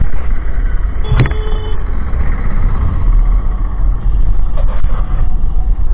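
Wind buffeting the microphone of a moving motorcycle, with the bike's engine and road noise underneath, and a brief high beep about a second in.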